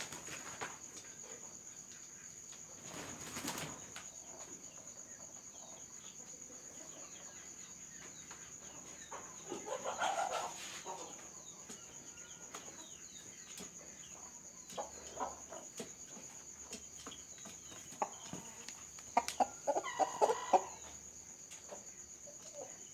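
Chickens clucking in short, scattered bursts, with a quick run of loud clucks about three quarters of the way through. A steady high cricket chirr sounds beneath them.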